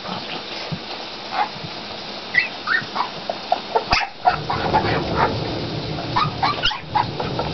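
A litter of very young Olde English Bulldogge puppies squeaking and whimpering, many short high cries one after another, busiest in the second half.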